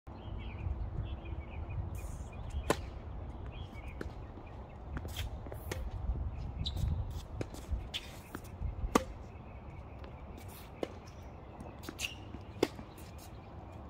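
Tennis rally: balls struck by rackets and bouncing on a hard court, heard as sharp pops. The loudest come about three seconds in, around nine seconds and near the end, with fainter hits and bounces between them, over a low steady rumble.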